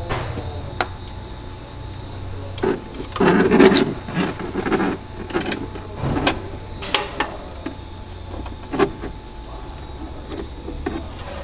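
Clicks, taps and scuffs of a stainless braided hydraulic hose and its metal fittings being handled and routed among engine parts, with the loudest clatter about three and a half seconds in. A steady low hum runs underneath.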